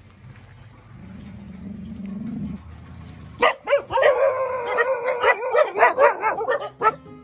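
Stray puppies barking and yipping at an unfamiliar visitor, a rapid run of high-pitched barks starting about three and a half seconds in.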